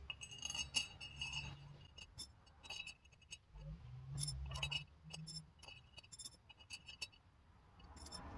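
Metal wire spokes clinking and ticking faintly against the powder-coated hub flange and against each other as they are threaded through the hub holes while a dirt bike rear wheel is laced. The clicks are light and scattered, some with a short metallic ring.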